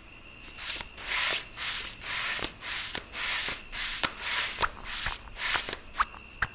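Night ambience of crickets chirping steadily, under a run of regular scuffing footsteps about two a second. About four and a half seconds in, short clicky footfalls with a small rising chirp begin.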